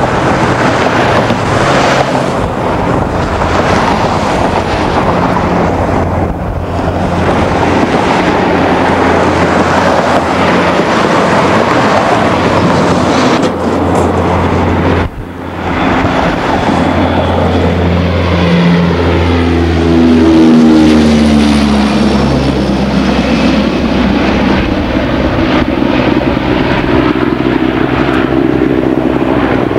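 Twin Allison T56 turboprop engines and propellers of a C-2 Greyhound coming in to land: a loud, steady propeller drone. It swells to its loudest about twenty seconds in as the aircraft passes close, and the pitch falls as it moves away. The sound briefly dips about fifteen seconds in.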